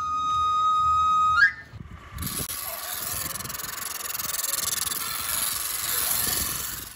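Knife sharpener's pan-pipe whistle holding one note, then running up in a quick rising glide about a second and a half in. After a short gap, a steady hiss of a blade being ground on a pedal-driven abrasive stone wheel.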